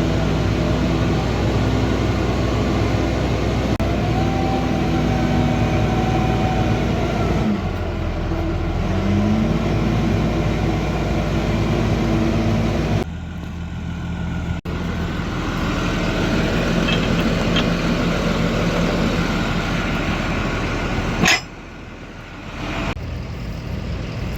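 Tractor engine running steadily, its pitch rising and falling twice in the first half as the engine speeds up and slows down. The sound changes abruptly about halfway through and again near the end.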